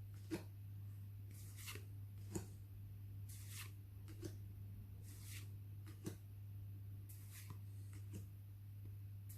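Pokémon trading cards being handled and slid one behind another: soft swishes and light taps about once a second, over a steady low hum.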